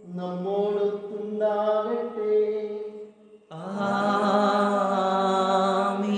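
Liturgical chant of the Holy Mass, sung in long held notes; it breaks off briefly about three seconds in, then a long held phrase begins.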